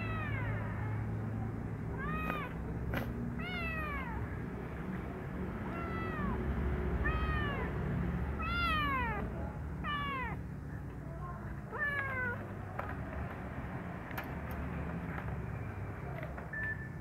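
Kitten meowing repeatedly: about eight short, high meows, each rising then falling in pitch, with the calls stopping after about twelve seconds. A steady low hum runs underneath.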